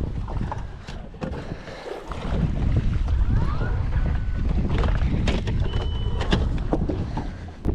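Wind buffeting the microphone on a fishing boat, a steady low rumble, with scattered small clicks and knocks of tackle and handling.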